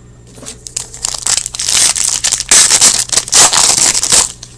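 Crinkling and crushing of a trading-card pack wrapper being handled and scrunched, a dense crackle that builds from about a second in, is loudest in the second half and stops shortly before the end.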